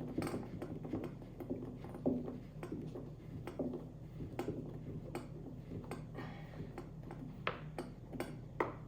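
Irregular metallic clicks and clinks of bolts, nuts and a wrench being handled and fitted into the steel frame of a garden dump cart, over a steady low hum.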